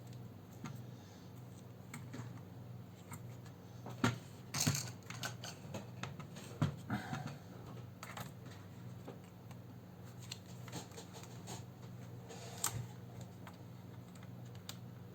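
Small plastic clicks, taps and light handling noise from working a laptop keyboard ribbon cable into its connector and its plastic clamp, a cluster about four seconds in, more around six to seven seconds and one near the end. A steady low hum runs underneath.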